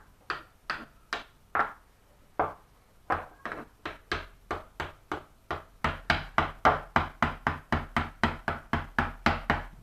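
A wooden toy hammer knocking on wooden toy pegs or nails. There are a few scattered taps at first, then quick, steady hammering at about four to five strikes a second from about six seconds in.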